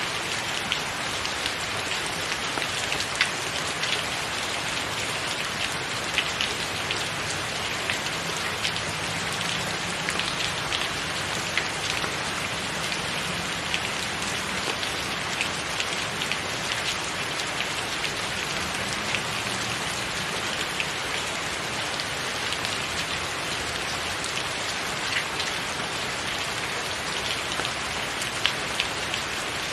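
Steady rain falling, an even hiss with many close, sharp individual drop hits scattered through it.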